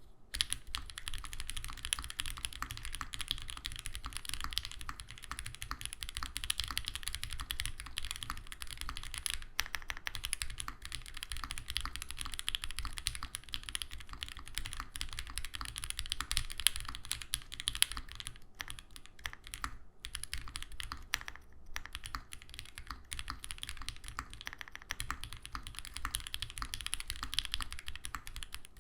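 Continuous fast typing on a custom mechanical keyboard with lubed OPBlack linear switches in a full POM plate and GMK keycaps: a steady stream of deep, muted keystrokes with a few short pauses.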